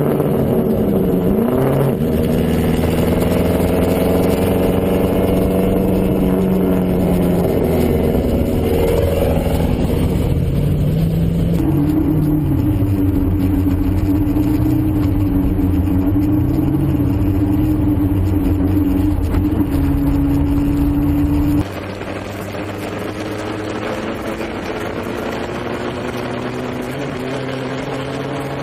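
Onboard sound of a streamliner land-speed motorcycle's engine running hard at speed, its pitch gliding up and down and then holding steady. About three-quarters of the way through it cuts suddenly to a quieter, steadier engine sound.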